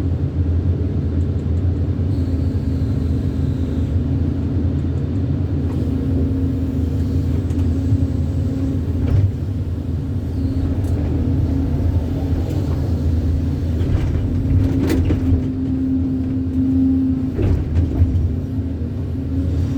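Excavator's diesel engine running steadily with a low drone and a steady hum above it, with a few short knocks around halfway and again near the end.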